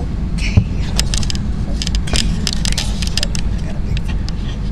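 Airliner cabin noise: a steady low rumble of engines and air, with close clicks and rustling from the handheld camera being handled.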